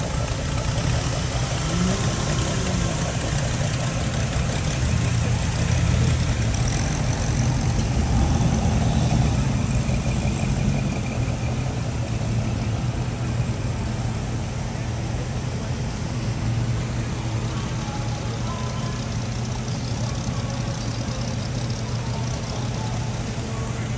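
Engines of classic cars and hot rods, among them a late-1940s Ford F-1 pickup and a 1940s Chevrolet sedan, running at low speed as they creep past in a line. A steady low engine note, with a brief rise and fall in pitch about two seconds in.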